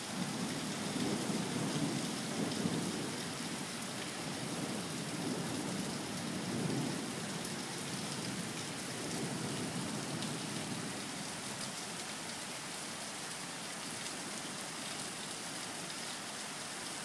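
Thunderstorm: steady rain with thunder rumbling low underneath. The thunder swells a few times in the first part and dies away after about ten seconds, leaving the rain.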